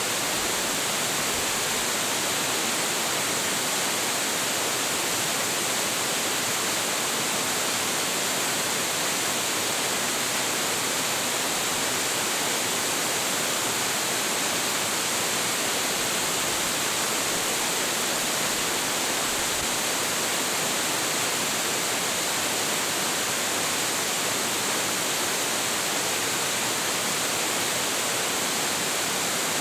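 A tall waterfall with heavy flow pouring steadily: an even, unbroken rush of falling water with a bright hiss on top and no changes.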